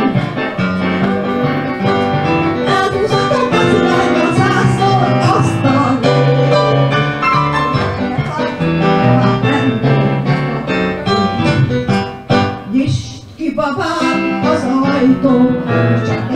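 A woman singing a Hungarian magyar nóta into a microphone, accompanied by an electronic keyboard. There is a short break in the music about thirteen seconds in.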